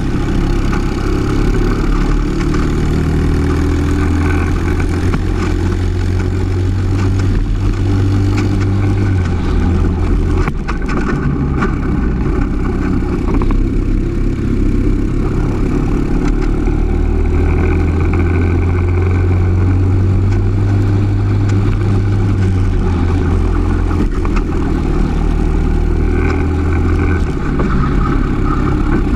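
Briggs & Stratton LO206 single-cylinder four-stroke kart engine at racing speed. Its revs climb and hold high for several seconds at a time, dropping back about ten seconds in and again near the end.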